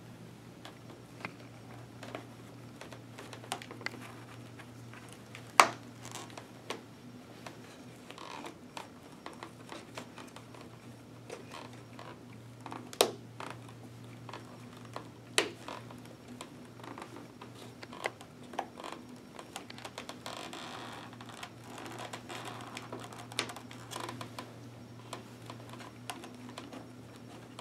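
Press-stud snaps on the cheek pads and comfort liner of a Schuberth C3-series helmet clicking into place as the padding is pressed back in, with rustling of the padding. Three sharper snaps stand out, the loudest about five and a half seconds in, over a steady low hum.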